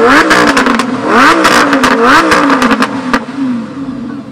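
Lamborghini Huracán's V10 through an Akrapovic exhaust, blipped sharply three times, about a second apart, with loud crackles and pops on each lift-off. It settles back to a steady idle near the end.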